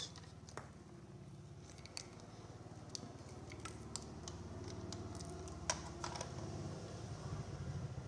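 Scattered light clicks and rustles as multimeter test leads and a washing machine's wiring are handled, over a low steady hum.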